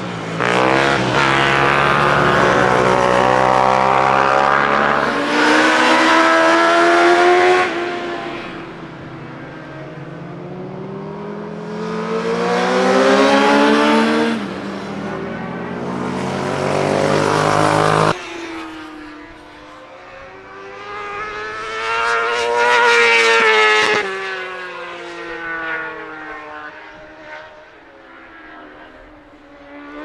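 Sport motorcycles riding past on a race circuit one after another, engines revving up and down through the gears, the pitch rising and falling with each pass. About four loud passes, one cut off abruptly a little past halfway.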